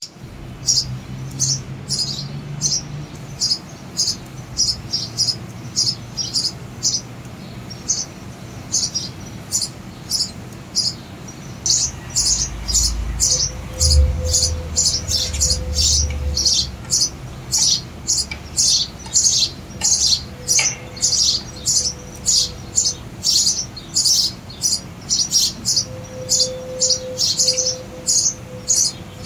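House sparrow nestlings begging with rapid, high-pitched chirps, several a second, growing denser about halfway through as an adult sparrow comes to the nest-box entrance to feed them. A brief low rumble sounds about halfway through.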